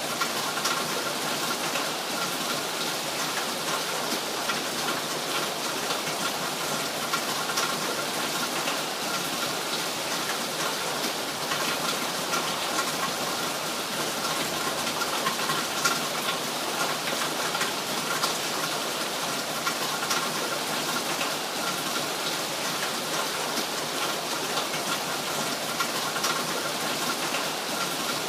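Steady rain falling and pattering on a surface, a dense even hiss with many small drop ticks throughout.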